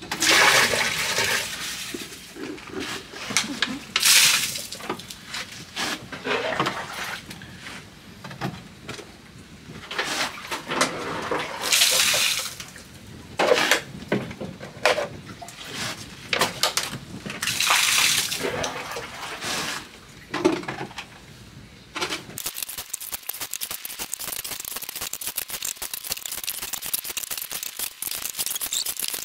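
Water scooped and poured by hand from a plastic bucket to flush a toilet, heard as several separate splashing pours. From about three quarters of the way in, a steady even hiss takes over.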